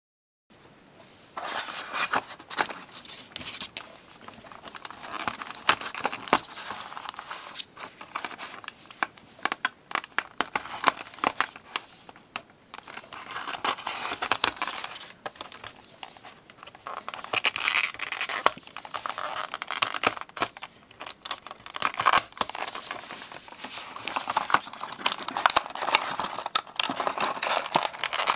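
A toy's retail blister pack being opened by hand: the clear plastic blister crinkling and cracking and the cardboard backing card tearing, in a busy run of sharp crackles, clicks and scraping.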